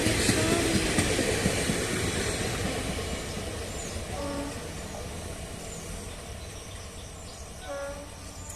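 Indian Railways train hauled by a WAG-5 electric locomotive rolling past, its wheels and rumble fading steadily as it moves away.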